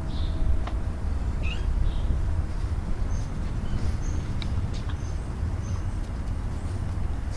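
Small birds chirping briefly, several short high calls scattered over a steady low rumble.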